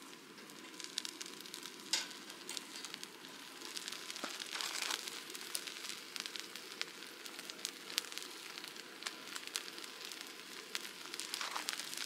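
Chicken and green onion skewers sizzling on a wire grill over an open fire, with a steady hiss and frequent sharp crackles and pops.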